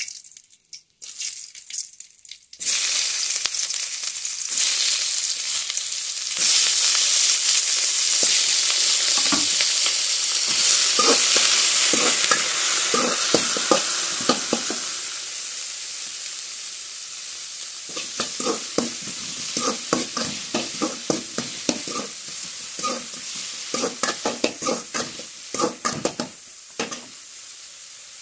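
Hot oil sizzling in a metal pan, in short spurts at first, then loudly from about three seconds in as sliced onion and tomato fry. The sizzle slowly dies down while a spatula scrapes and stirs the vegetables in quick strokes.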